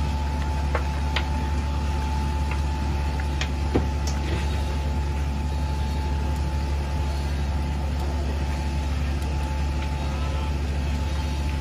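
Fire truck engine running steadily with a low hum and a steady higher whine, broken by a few scattered sharp cracks, the loudest about four seconds in.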